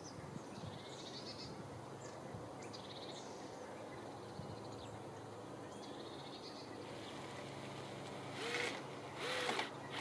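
Small birds singing in short, high, rapid trills, then two short animal calls near the end, under a second apart.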